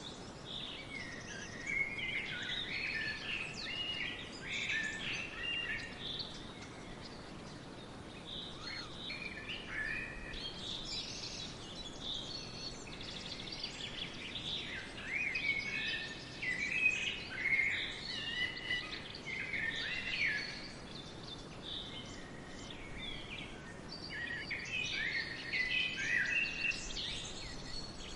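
Several songbirds singing and chirping over a steady background hiss, in busy bursts of short rising and falling notes with quieter gaps between.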